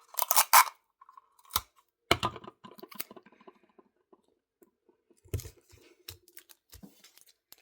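Handling sounds of gluing a craft piece onto a homemade hair bow: irregular clicks, taps and light rustles against the tabletop, loudest in a quick cluster at the start and again about two seconds and five seconds in.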